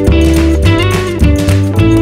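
Background music: a guitar-led tune with held notes over a steady beat.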